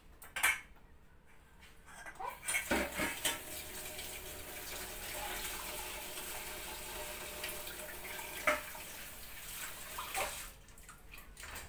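Kitchen tap running for several seconds, starting about two seconds in and shutting off shortly before the end, with a few sharp clinks of dishes.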